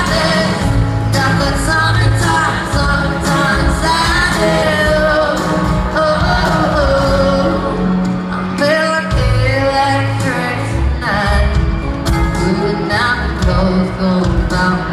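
Live pop song: a woman singing into a microphone over full band accompaniment with sustained bass, amplified through an arena sound system.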